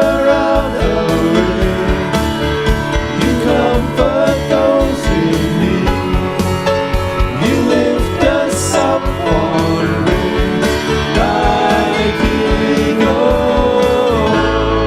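Worship song: singing voices over guitar with a steady beat. Just before the end the beat stops and a steady low held tone takes over.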